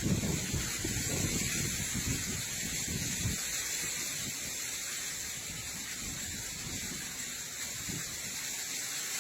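Steady hiss of heavy rain falling, with irregular low rumbles of wind buffeting the microphone, strongest in the first few seconds.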